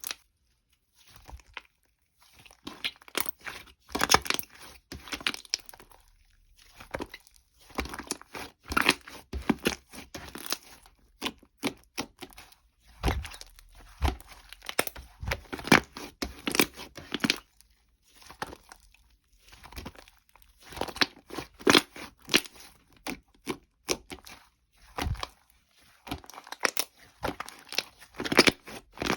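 Slime being squished and stretched by hand, making crackling, popping clicks in irregular bursts with short pauses between them.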